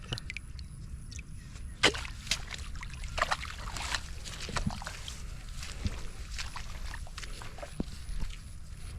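Shallow floodwater sloshing and splashing in short, irregular splashes, with the sharpest splash about two seconds in.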